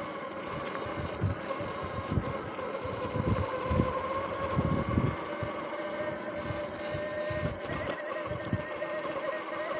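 Electric bike motor whining at a steady pitch while riding. The pitch sags slightly midway and climbs again near the end, over low rumbling bumps from the ride over a dirt track.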